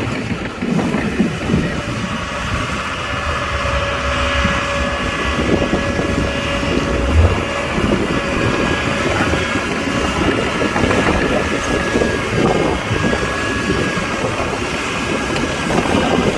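Heavy construction machinery's diesel engine running steadily, with a low rumble and steady whining tones over it.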